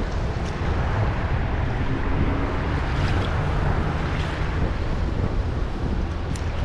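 Wind buffeting the action camera's microphone: a steady rumbling noise, heaviest in the low end, with a few faint ticks.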